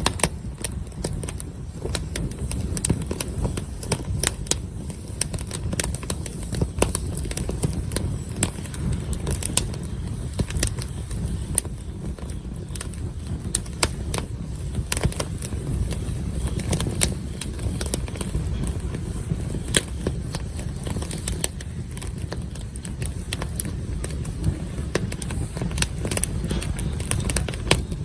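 Campfire burning, wood crackling and popping in irregular sharp snaps over a steady low rumble.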